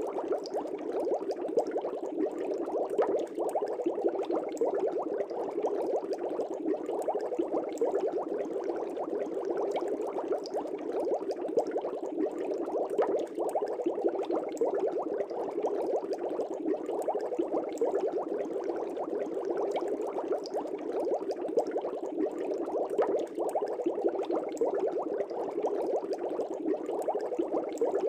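Air bubbles streaming up through the water of a fish tank: a steady, dense bubbling made of many tiny pops and gurgles.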